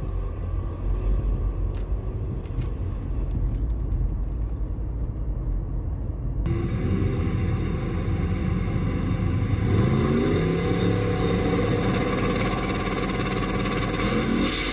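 Drag-racing street cars' engines at full throttle: a dense low rumble, then after a cut an engine's pitch climbs in long rising sweeps as a car accelerates down the strip, twice.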